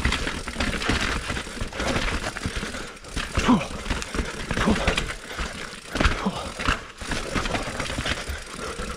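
Steel 2020 Norco Torrent HT hardtail mountain bike rattling and clattering as it rides down a rough, wet trail, with a steady jumble of small knocks and tyre noise.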